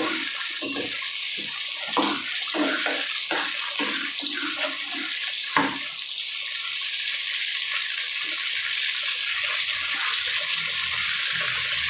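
Pork belly pieces frying in hot oil in a pan, browning: a steady sizzle, with crackles in the first half and one sharp click about halfway through.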